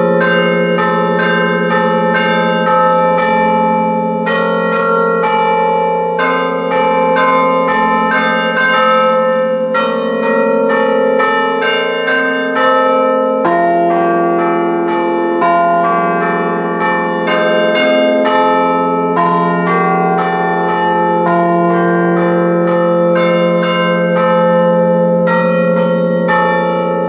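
A set of five church tower bells is struck by hammers worked from a lever keyboard, playing a tune. The quick strikes fall on different bells, about two to three a second, and their ringing overlaps into a loud, continuous peal.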